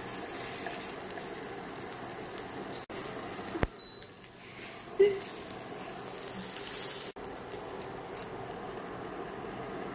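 Roti John (French bread on egg and mozzarella) frying in a little oil in a non-stick pan, with a steady sizzle. There is a sharp click about three and a half seconds in and a short loud knock about five seconds in.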